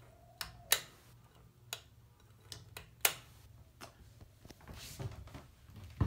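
Casablanca Four Seasons III ceiling fan running in reverse with a low steady motor hum. Several irregular light ticks and clicks come in the first few seconds, the sharpest about three seconds in.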